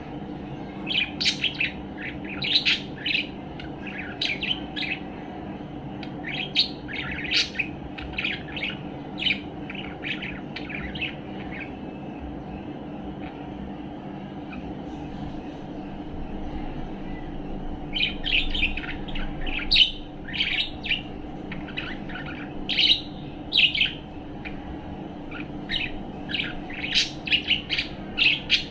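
A budgerigar chirping in bursts of rapid short notes, with a pause of several seconds in the middle. The bird is relaxed and content, giving happy chatter. A steady low hum runs underneath.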